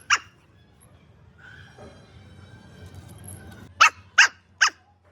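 A dog barking: one short bark just after the start, then a quick run of three barks near the end.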